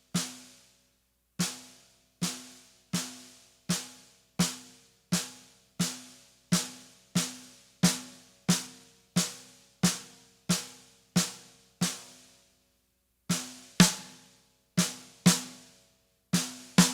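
Snare drum struck with a stick in slow, even single strokes, about one every 0.7 s, each letting the stick rebound off the head and leaving a short ringing tone. After a pause near the end, the strokes come in pairs.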